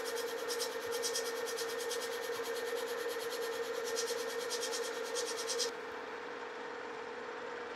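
Metal lathe taking a facing cut across a cast iron gear blank: the tool scrapes the spinning face in a fast, even pulsing rasp over the steady hum of the running lathe, the cut still interrupted because the face has not yet cleaned up all the way around. About six seconds in the cutting noise stops and only the lathe's hum remains.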